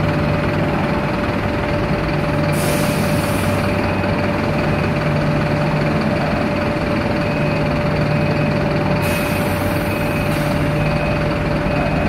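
Heavy diesel vehicles running steadily, an armoured riot-police truck driving past and an articulated bus alongside: a low engine drone, with two short hisses, about two and a half seconds in and again around nine seconds in.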